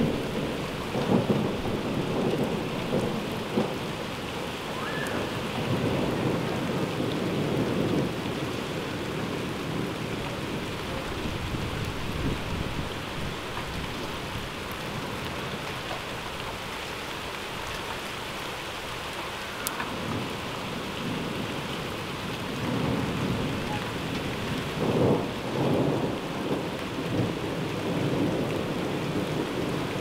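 Thunderstorm: heavy rain falling steadily, with rolling thunder rumbles. The thunder is heaviest in the first several seconds and again through the last third, with only rain between.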